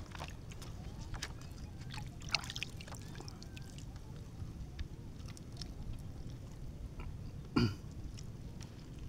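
Raw fish being pulled apart by hand: small wet clicks and ticks of fingers picking at the flesh over a steady low rumble of wind and water. A short throat-clearing sound comes near the end.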